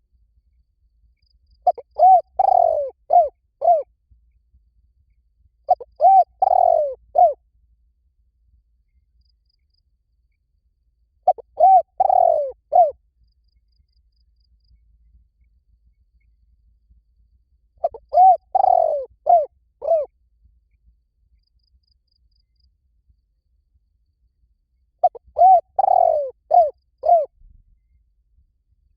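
Spotted dove cooing: five phrases of several low, quick coos each, separated by pauses of a few seconds. This is a recorded call played as a lure to get other doves to answer.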